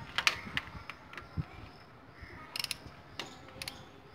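Socket ratchet wrench clicking in short strokes as the bolts of a motorcycle engine's oil filter cap are tightened: scattered single clicks, with a few quick clicks together about two and a half seconds in and again near the end.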